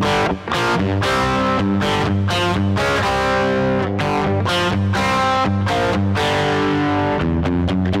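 Electric guitar, a Fender Stratocaster, played through a Marshall Jackhammer distortion pedal: a heavily distorted riff of sustained chords struck about twice a second.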